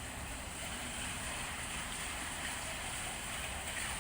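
Steady rushing outdoor background noise on an open rooftop, even throughout with no distinct events.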